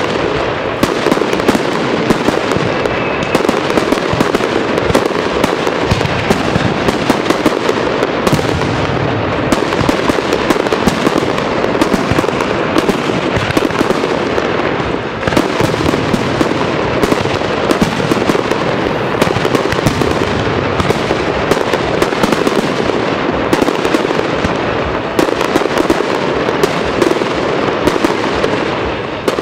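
Fireworks display: aerial shells bursting in a continuous barrage, a dense, unbroken run of sharp bangs in quick succession.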